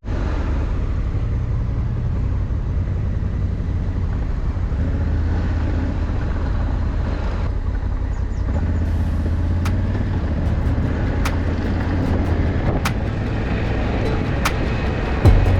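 Honda Africa Twin motorcycle's parallel-twin engine running steadily at low revs while riding, with scattered sharp clicks in the second half.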